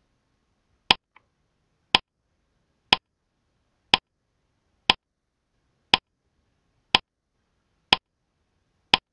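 Quiz countdown timer's tick sound effect: one sharp tick each second, nine in all, with silence between.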